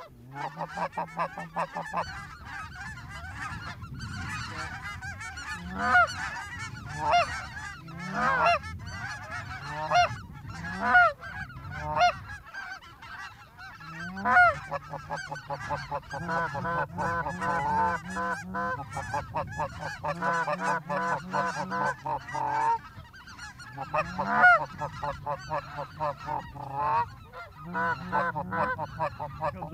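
Canada goose calling: repeated honks and short clucks, some bursts loud and close, with a long run of fast, evenly spaced clucks about halfway through.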